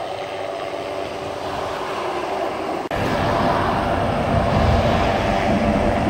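Steady engine and vehicle noise. It cuts off abruptly about three seconds in and comes back louder and deeper.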